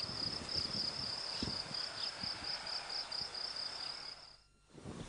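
Cricket chirping in a steady high pulsing trill, about five pulses a second, which cuts off about four seconds in.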